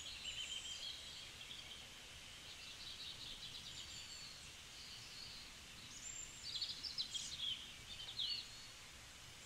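Faint birds chirping in the background: short high chirps and trills, with a busier flurry about two thirds of the way through, over a low steady background noise.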